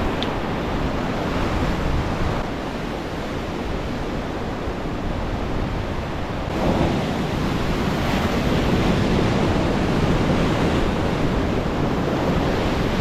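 Ocean surf washing against rocks, with wind rumbling on the microphone. The surge grows louder about halfway through.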